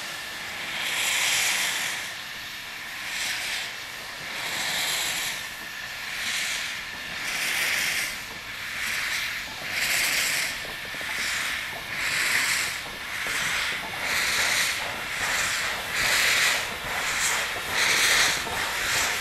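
JS-class steam locomotive starting away slowly, its exhaust chuffing in rhythmic bursts of hissing steam, about one beat a second and quickening a little near the end.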